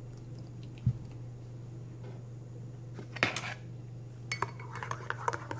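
Metal spoon stirring liquid in a ceramic mug, clinking against the sides in quick irregular taps from about four seconds on, after one louder clink near three seconds. A dull thump about a second in, over a steady low hum.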